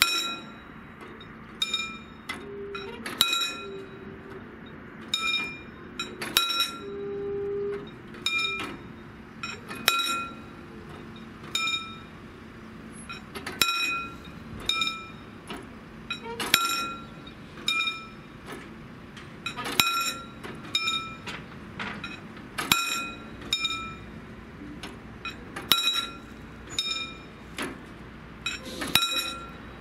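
Level crossing warning bell, a dome bell on the barrier post, ringing in single metallic strikes about once a second at an uneven pace, each ringing out briefly, as the crossing barriers lower.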